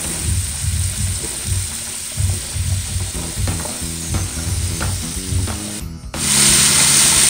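Wet, freshly washed cut long beans tipped into hot oil and spice paste in a wok, hissing and sizzling as the water meets the oil. After a brief drop-out about six seconds in, the sizzle comes back louder and steady.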